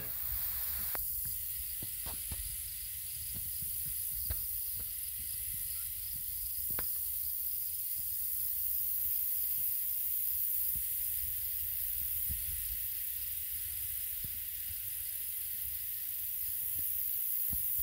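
Steady outdoor hiss with wind rumble on the microphone and a few faint scattered clicks, under a faint high-pitched, evenly pulsing tone.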